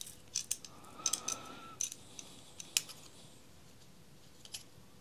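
Light metallic clicks and taps as a digital caliper's sliding jaw moves and touches a small steel ball bearing being handled. Several scattered clicks come over the first three seconds, and two more near the end.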